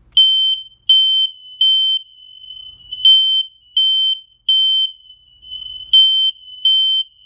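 Home smoke alarm system sounding after its panic button is pressed: a loud, high-pitched beep repeating evenly, a little under one and a half beeps a second, a couple of the beeps fainter than the others.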